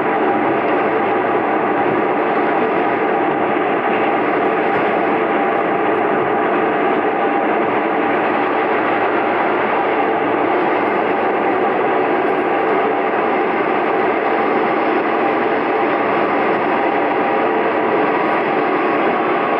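Steady running noise of the Iyonada Monogatari diesel railcar, heard from inside the cabin as it travels along the line.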